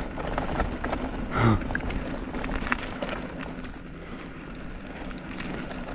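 Mountain bike rolling down a bare rock slab: a steady low rumble of the tyres on the rock, small rattles and clicks from the bike, and wind on the microphone.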